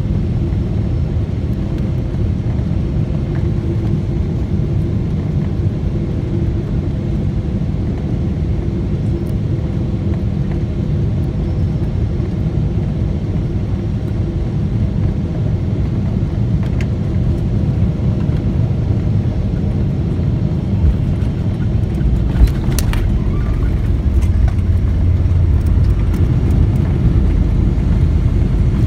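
Airliner cabin noise on final approach: a steady low rumble of engines and rushing air. About three-quarters of the way through there is a sudden thump, and then the rumble grows deeper and louder as the wheels touch down and the plane rolls along the runway.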